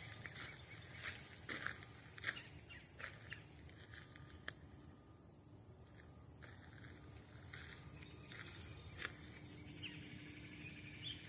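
Footsteps of someone walking along a trail, with a steady high insect buzz behind them; the steps thin out for a few seconds in the middle.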